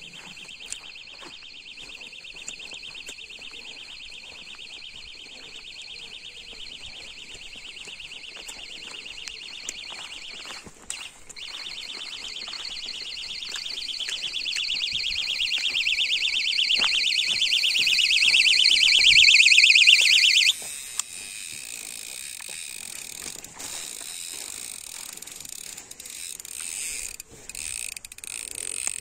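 Electronic carp bite alarm sounding a rapid, unbroken run of high beeps as a carp takes line on a bite, growing louder and then cutting off suddenly about twenty seconds in. A few scattered clicks follow.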